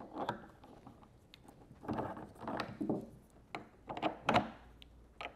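Clicking and rattling of the Power-Pole Micro anchor's mounting hardware as a bolt is dropped through the bracket and screwed in by hand. The sounds come in a few short clusters, the loudest about four seconds in.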